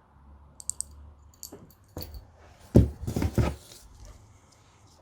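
Handling noises from unpacking a safe's accessories: a few light clicks and rattles, then a louder cluster of knocks and rustles about three seconds in.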